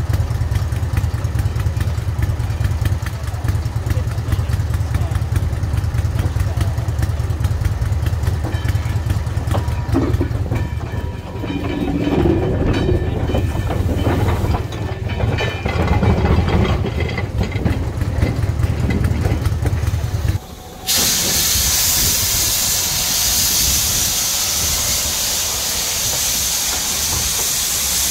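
A low steady rumble with some clatter, then, about two-thirds of the way in, a loud steady hiss of steam from a saddle-tank steam locomotive standing close by.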